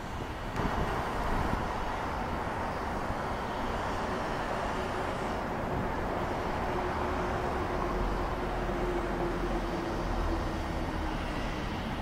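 Steady rumble of motor vehicle traffic. It swells about half a second in, and a faint steady hum runs through the middle.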